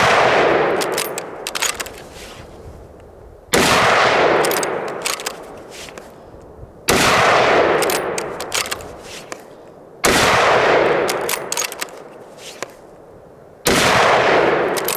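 Steyr Scout bolt-action rifle in .308 Winchester firing five shots, roughly three and a half seconds apart, each loud report fading away over the next couple of seconds. Sharp metallic clicks follow each shot as the bolt is worked for the next round.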